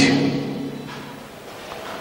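A man's voice trails off at the end of a phrase and fades out, leaving a faint steady room hiss.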